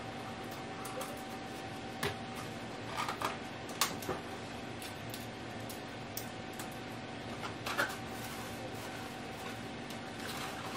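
Soft rustling with scattered light taps and crinkles from balloons being handled and pressed against a sequin curtain backdrop, over a faint steady hum.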